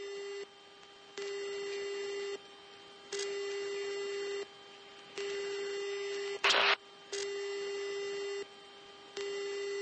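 Repeating electronic alert tone in an aircraft cockpit: a steady buzzy tone about a second long that sounds about every two seconds. Near the middle a short, louder burst of hiss like radio static cuts in once.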